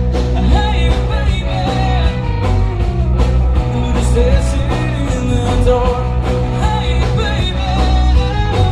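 Live rock band playing: acoustic and electric guitars over a drum kit, with a singing voice, recorded binaurally with in-ear microphones.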